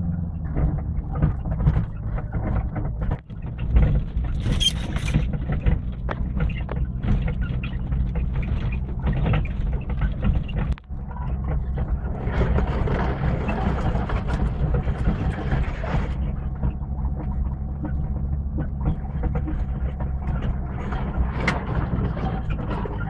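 Vehicle engine running steadily at low revs, with irregular rattling and clatter over it and a stretch of louder hiss about halfway through.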